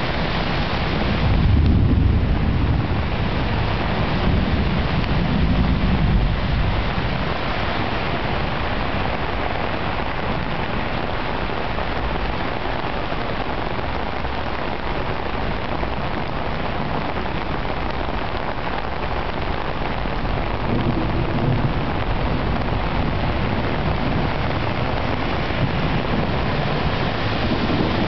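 Torrential rain pouring down onto a flooded street in a steady, heavy hiss. Low rumbles swell up under it about two and five seconds in, and again twice in the last third.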